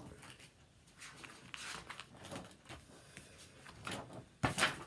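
Paper notebook pages being leafed through, a run of soft rustles and flicks with one louder page rustle near the end.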